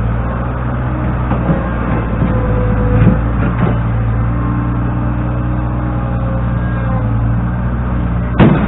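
New Holland LX665 skid steer loader's engine running steadily, with a few short knocks in the first half and a sharper, louder knock near the end.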